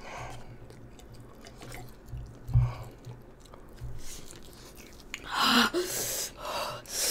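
Close-miked chewing and slurping of spicy instant noodles, with a sharp low thump about two and a half seconds in. Over the last two seconds come loud, breathy puffs and gasps through the mouth: a boy fighting the burn of the fire noodles.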